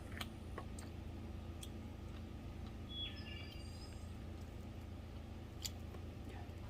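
Small clicks and smacks of eating chicken feet by hand, a few scattered ticks over a low steady hum, with a brief cluster of high chirps about three seconds in.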